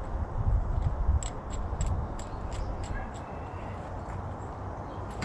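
Hand tool work on bicycle parts: low thumps and handling knocks, then a run of light metal clicks that come further and further apart, and one more click near the end.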